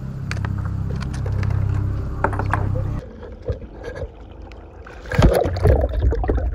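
Noise from a kayak on the water: a steady low rumble with scattered clicks and knocks. It cuts off abruptly about three seconds in, and quieter, irregular handling knocks and water noise follow, loudest about five seconds in.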